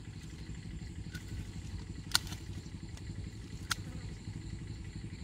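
Hand pruning shears snipping branches off a young mai (Ochna integerrima) shrub: two sharp snips about a second and a half apart, the first the louder, over a steady low rumble.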